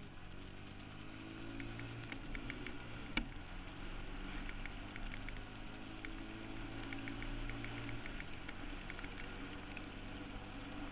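Suzuki QuadRunner 160 ATV's single-cylinder four-stroke engine running steadily while riding, its pitch drifting slightly. Many light ticks sound over it, with one sharp click about three seconds in.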